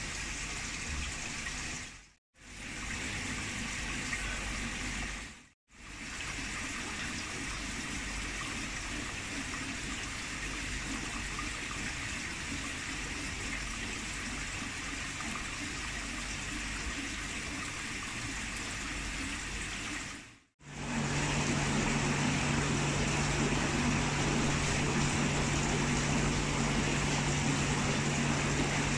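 Aquarium water noise: a steady rush and bubbling of filter and aeration water, in several takes broken by brief fades to silence. The last take, from about 21 seconds in, is louder and carries a steady low hum.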